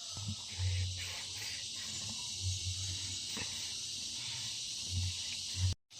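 Steady high-pitched drone of insects, crickets or similar, with a few faint low bumps.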